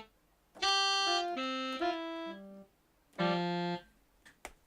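Keyboard-like synthesizer notes from an external rack sound module, triggered from the MPC Renaissance: a short run of notes stepping down and up in pitch, then a brief chord about three seconds in, auditioning the newly selected program. Two faint clicks follow near the end.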